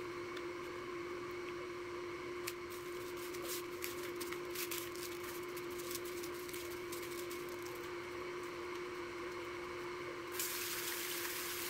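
Hands dredging raw chicken tenders through egg wash and a dry breading mix on foam plates: light wet squishing with scattered clicks and crackles over a steady background hum. About ten seconds in, a tap is turned on and water starts rushing.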